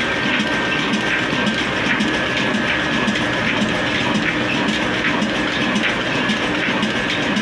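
26 hp Hussain Company stationary diesel engine ('kala engine') running steadily, with an even, rhythmic beat.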